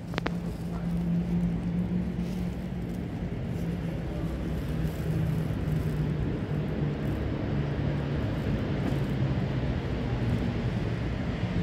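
Steady low rumble of nearby motor vehicles, with a couple of faint clicks just after the start.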